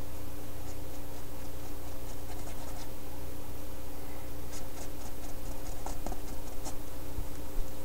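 Paintbrush dabbing and scratching on a stretched canvas: a run of light taps and scratches, sparse at first and thickest in the second half, over a steady electrical hum.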